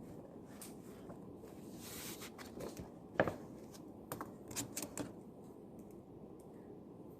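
Small desk-work sounds of someone studying: a soft paper rustle, then one sharp tap about three seconds in and a quick run of small taps and clicks a second later, over a steady low room hum.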